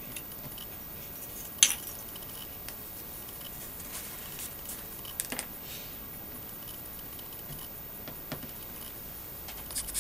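Small items being picked up and set down on a hobby workbench: a few sharp clicks and taps over a faint steady hiss, the loudest about a second and a half in.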